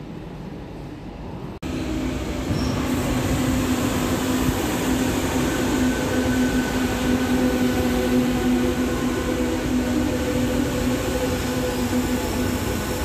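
Metro de Madrid train running into the station along the platform: a rumble of wheels on rail with a steady whine held over it. The sound rises abruptly about a second and a half in.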